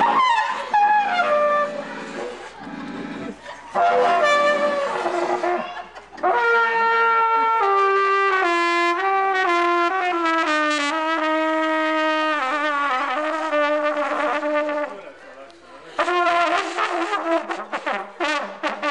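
Balkan brass-band trumpet playing a melody, with a second brass horn alongside, in long held notes and quicker runs. The playing breaks off briefly about 15 s in, then starts again.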